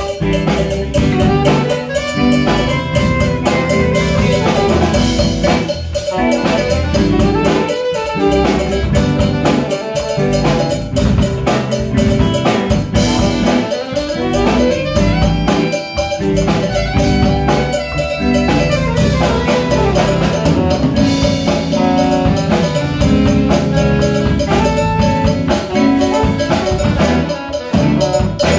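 Live instrumental band playing with alto and tenor saxophones, electric guitar, bass guitar, drum kit and hand drums, over a steady drum beat.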